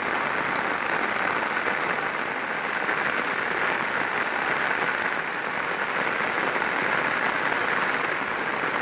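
Heavy rain falling steadily on a wet paved road.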